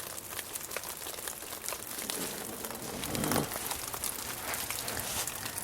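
Meltwater dripping off a roof from ice held in pine straw, many irregular drips pattering like light rain.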